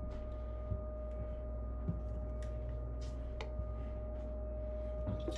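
Faint clicks and crinkles of PVC drain fittings and a plastic bag being handled, a few light taps spread through, over a steady low hum with a thin high tone.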